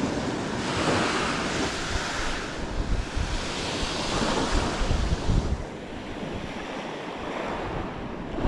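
Sea surf washing and breaking on a rocky shore in swells that rise and fall every couple of seconds, with strong gusting wind buffeting the microphone.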